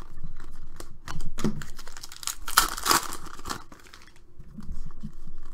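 Stack of basketball trading cards being flipped through by hand: cards slide and flick against each other in a quick series of clicks and rustles, loudest about two and a half to three and a half seconds in.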